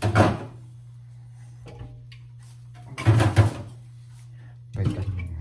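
Beer cans clattering against each other and a clear plastic refrigerator bin as they are handled and pulled out, in short bursts at the start, about three seconds in and near the end, over a steady low hum.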